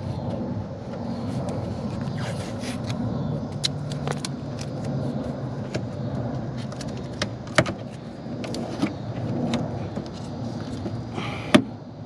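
Scattered clicks and knocks of tools and plastic bumper parts being handled and pried while a car's bumper is worked on, over a steady low rumble. The loudest knocks come about seven and a half seconds in and near the end.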